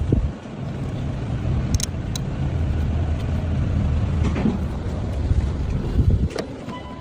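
Car engine running at a steady idle, with a few light clicks.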